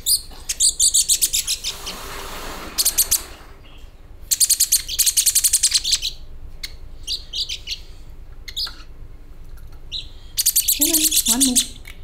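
Baby bronze mannikins giving begging calls while being hand-fed by syringe: rapid trains of high-pitched chirps in several bursts of a second or two, with short pauses between.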